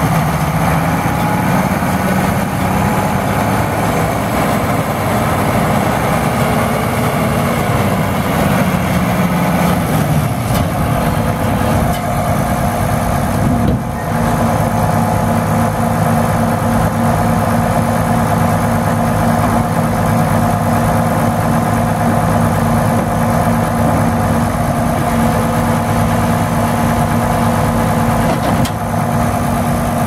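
Farm tractor's diesel engine running steadily with a New Holland 688 round baler hitched, while the baler's tailgate is raised and lowered on the tractor's hydraulics. The engine note shifts about ten seconds in and again with a brief dip around fourteen seconds.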